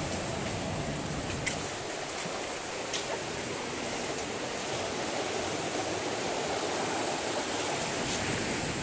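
Small ocean waves washing up on a sandy beach, a steady rush of surf. Two brief sharp clicks sound about one and a half and three seconds in.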